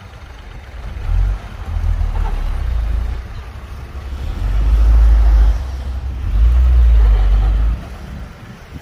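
Deep engine rumble of heavy earth-moving machinery, swelling twice and falling away near the end.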